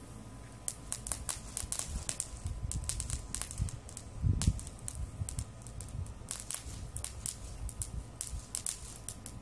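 Handheld sparkler-type firework crackling and spitting in a fast, irregular run of sharp pops, with one low thump about four seconds in.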